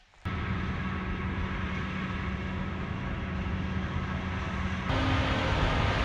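Mount Washington Cog Railway train's locomotive running on the rack track: a steady engine drone with several held tones. It starts abruptly and grows louder and noisier about five seconds in.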